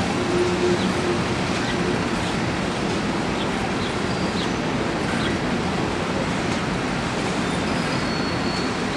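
Empty coal hopper cars of a freight train rolling past: a steady rumble of steel wheels on rail, with a few faint, short high-pitched squeaks scattered through it.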